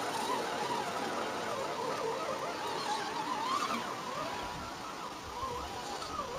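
Axial SCX10 Honcho RC crawler's electric motor and gears whining as it crawls, the whine rising and falling in pitch with the throttle.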